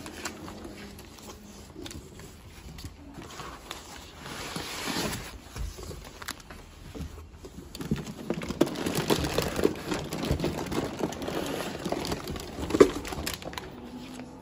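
Cardboard box being unpacked by hand: papers and foam packing scraping and rustling, then a foil anti-static bag crinkling as the packed unit is lifted out. There is a sharp knock near the end.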